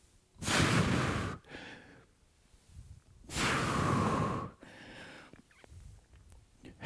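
A man breathing hard while exerting himself through squats: two loud, long exhales, each about a second, about three seconds apart, with quieter breaths between.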